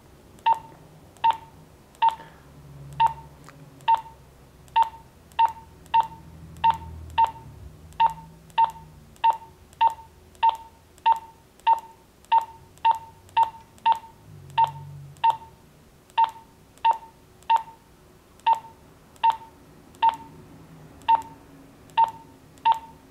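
A Wouxun KG-UV9D handheld two-way radio beeping as its menu is scrolled: a short, identical mid-pitched beep for each step, one to two a second at slightly uneven spacing.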